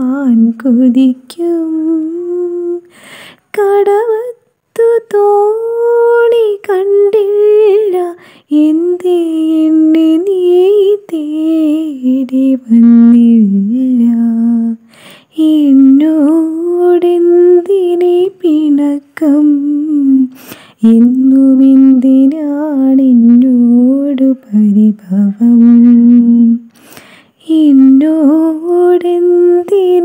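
A solo female voice singing a slow, lullaby-like melody without accompaniment, in phrases broken by short pauses.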